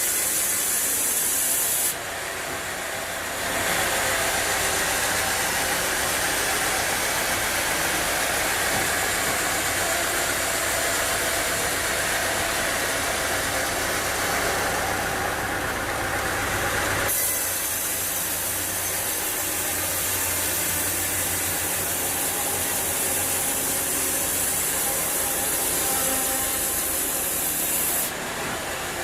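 Sawmill machinery running: a steady dense hiss over a low engine hum, changing abruptly a few times.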